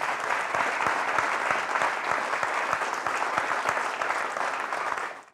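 Audience applauding: dense, steady clapping that cuts off suddenly near the end.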